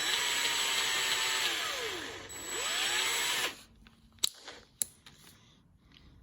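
A small electric drill running, drilling out the rivet that holds a diecast toy car's base together. Its whine is steady, slows almost to a stop about two seconds in, spins back up, and cuts off at about three and a half seconds. Two sharp clicks follow.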